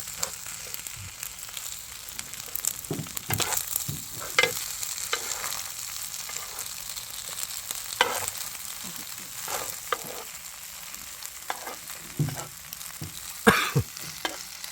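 Kimchi fried rice sizzling steadily in a hot pan while it is stirred and mixed, with a utensil now and then scraping or knocking against the pan, loudest about 13 seconds in.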